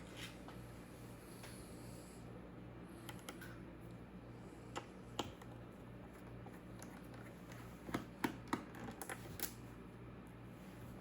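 Scattered light clicks and taps, with a quick run of several about eight seconds in, over a steady low hum.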